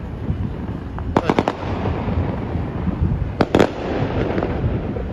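Fireworks going off, with a quick cluster of sharp cracking bangs about a second in and another cluster past three seconds, over a continuous rumble of more distant bursts.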